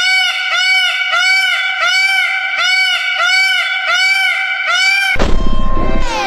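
An animal's high, pitched call repeated about twice a second, each note rising and falling. About five seconds in it gives way to a louder, rougher sound with sliding falling pitches.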